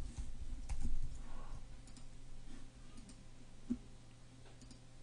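A handful of separate computer keyboard and mouse clicks, spaced out over several seconds, over a low steady hum.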